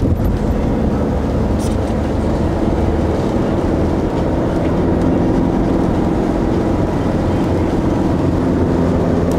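Steady car cabin noise while driving: a low engine hum and tyre noise on a wet road.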